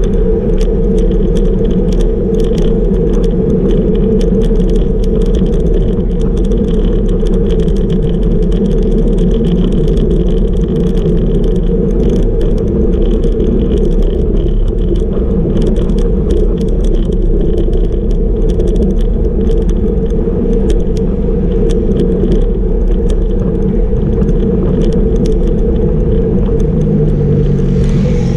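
Steady wind and road rumble on a bike-mounted camera riding at about 37 km/h, with rapid rattling clicks from the road vibration. Near the end an engine's hum comes in.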